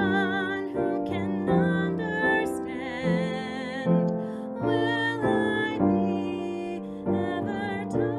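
A woman singing a slow musical-theatre song with vibrato on held notes, over a piano accompaniment.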